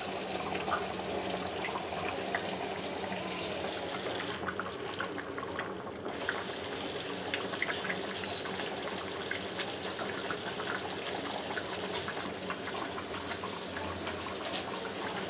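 Rice and water boiling in an open kadhai: a steady bubbling with scattered small pops.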